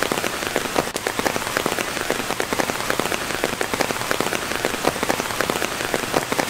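Heavy rain falling steadily, with many close drop hits sounding among the general rush.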